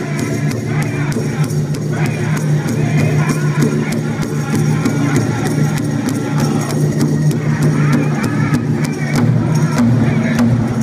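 Powwow drum group playing for fancy dancing: a steady drumbeat on a large drum under the singers' voices.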